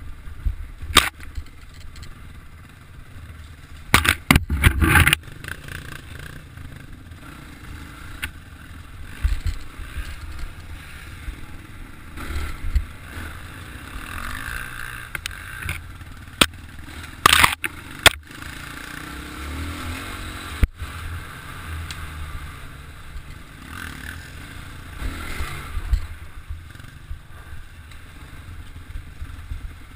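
Dirt bike engine running and revving while riding a rough dirt trail, with loud clattering knocks from the bike over bumps about four seconds in and again around seventeen seconds.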